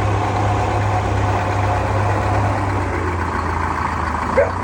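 Engine powering a Frick sawmill running steadily, with a low, even hum and no sign of a cut. A brief, short chirp comes near the end.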